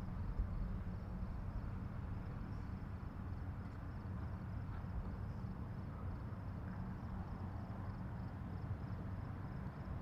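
Steady low drone of marine diesel machinery from the passing towed cargo ship and its tugboats, with a faint, evenly pulsing high chirp over it.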